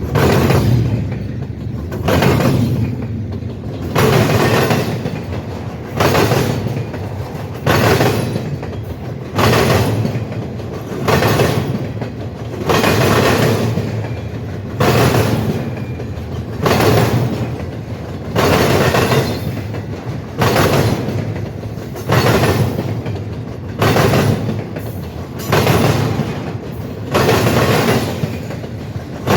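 A passing train's cars rolling by at a steady speed, the wheels clacking over the track in an even beat about every two seconds over a constant rumble.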